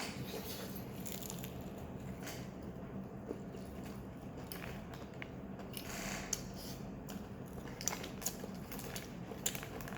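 Someone biting into and chewing fried chicken, with scattered small crunches and clicks, over a steady low hum.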